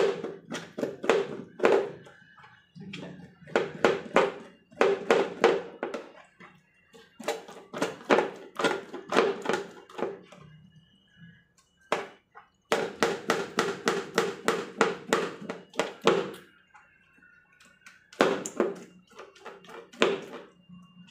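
Kitchen knife scraping a wet cow snout on a plastic stool in quick, rhythmic strokes, about four to five a second, in runs of a few seconds with short pauses between, to strip off the hair.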